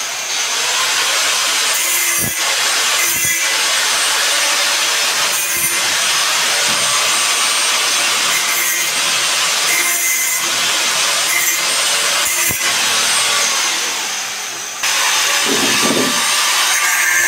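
Handheld angle grinder running and cutting metal tubing, a steady harsh hiss with a few knocks along the way. Near the end it dips briefly, then comes back abruptly.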